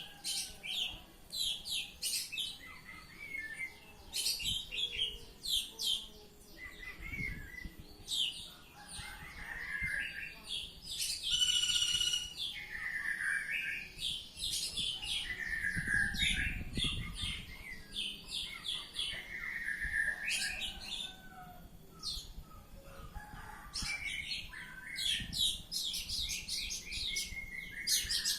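Oriental magpie-robin (kacer) in full song: long runs of quick, varied chirps and whistled notes, phrase after phrase with short pauses between.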